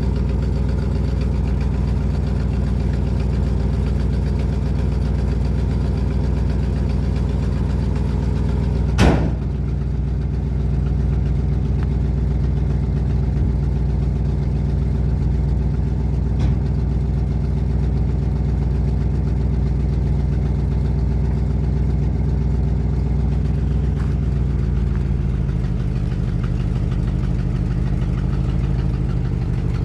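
1972 Ford F-250 truck engine idling steadily, starved of fuel by a carburetor that the owner suspects is clogged. A single sharp click comes about nine seconds in, and the idle drops lower about five seconds before the end.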